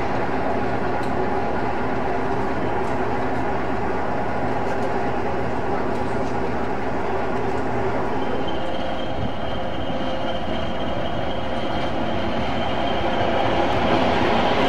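British Rail diesel-electric locomotive engines running steadily at idle. The engine note changes about eight seconds in, and the sound grows louder near the end as a Class 20 locomotive comes in.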